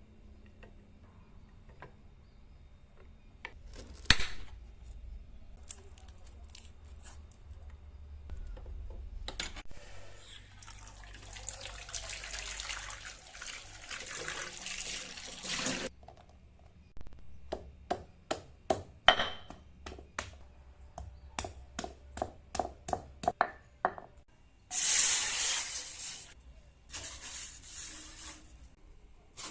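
Kitchen work with water: a sharp knock, then water running for about six seconds, then a run of quick light knocks and taps, then two short spells of running water near the end.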